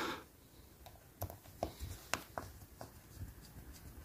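Faint, scattered light clicks and taps, about half a dozen starting a second in, from small plastic parts of a OO gauge model locomotive chassis and a small screwdriver being handled as the motor retainer is seated over the motor.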